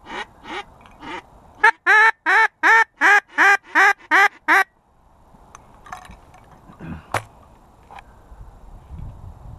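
A quacking series in mallard style: four softer quacks, then about eight loud, evenly spaced quacks at roughly three a second, each falling in pitch, stopping about halfway through. A few faint knocks follow.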